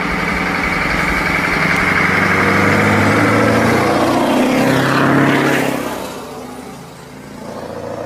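Scania semi-truck's diesel engine running as it pulls a container trailer past at close range. It grows loudest about five seconds in as the truck goes by, then fades as it drives away.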